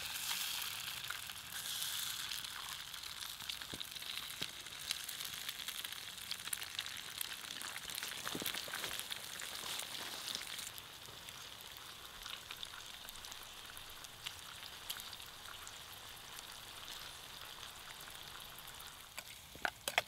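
A frying pan over a campfire, with an egg and sliced sausage sizzling in hot fat, with fine crackles throughout. The sizzle eases a little about ten seconds in.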